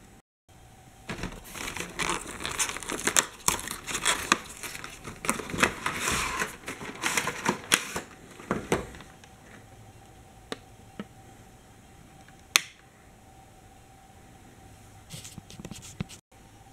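Plastic Hot Wheels track pieces being handled and fitted together: a busy run of clicks, knocks and rustling for several seconds, then a few single sharp clicks.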